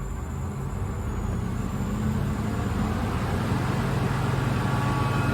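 Kaeser SK 25 rotary screw air compressor starting up on its frequency inverter, the motor and screw air end running up. The hum grows steadily louder throughout, strengthening further about three seconds in.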